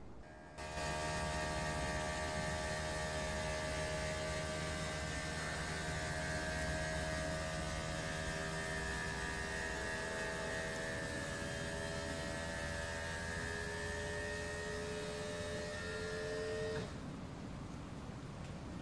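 The electro-hydraulic cab-tilt pump of a Heli 16-ton forklift runs with a steady whine while the cab tilts forward, then cuts off suddenly near the end.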